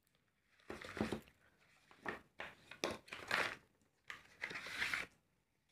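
White cardboard packaging being handled: the inner paper sleeve sliding and rubbing against the box, with soft rustles and scrapes in several short bursts as the USB cables are drawn out.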